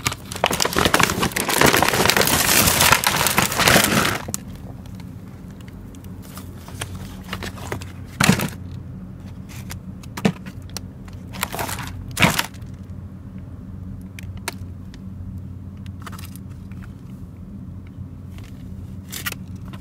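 Hands rummaging through plastic-wrapped food packaging, a dense crinkling and crackling of plastic for about the first four seconds, then quieter with a few separate sharp crinkles and knocks as packages are shifted.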